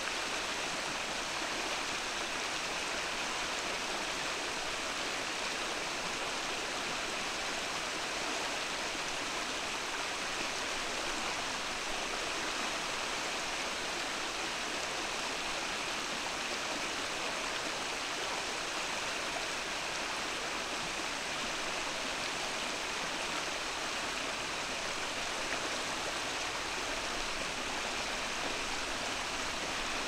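Mountain stream babbling steadily over its bed: an even, unbroken rush of flowing water with no change in level.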